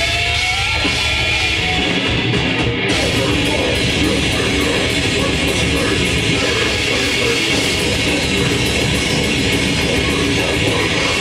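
A grindcore band playing live and loud: dense, distorted heavy-metal-style music with guitars.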